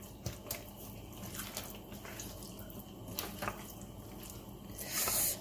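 A hand mixing seasoned raw chicken wings in a plastic bowl: faint wet squelching with small clicks. A brief louder hiss comes near the end.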